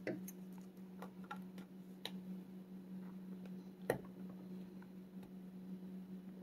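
Small metallic clicks and scrapes of a lock pick prying at the retaining clip on a padlock's plug. There are sharper clicks just after the start, about two seconds in and about four seconds in, over a steady low hum.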